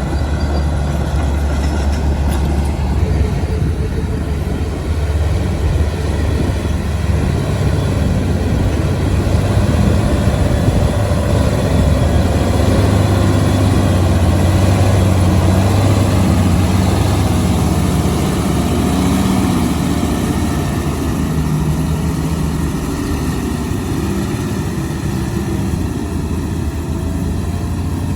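Heavy diesel earthmoving machinery working: a steady, deep engine drone with a rattling clatter over it. It grows louder around the middle and eases off toward the end.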